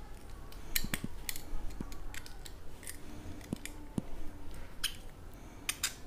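Scattered light metallic clicks and taps from a plier-type hand swaging tool for copper tubing as it is handled and a copper tube is fitted onto its steel swaging rod.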